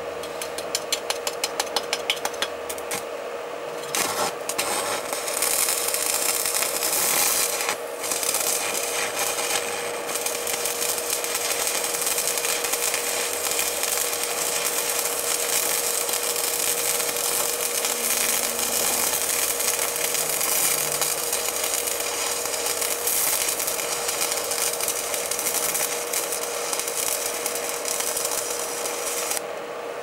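A copper-to-aluminium wire twist overloaded with heavy current: a rapid run of clicks at first, then a loud rasping, crackling hiss over a steady hum as the wire overheats, smokes and burns. The hiss cuts off shortly before the end, when the wire burns through at the entry to the twist.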